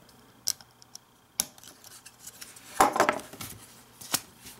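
Plastic LEGO pieces clicking and clacking as small parts are handled and pressed onto a model: a few separate sharp clicks, with a busier cluster of clacks about three seconds in.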